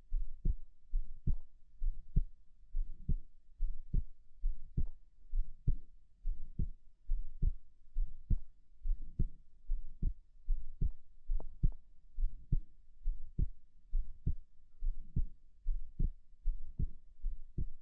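A human heartbeat, close-miked, beating steadily at about seventy beats a minute as low, soft double thumps.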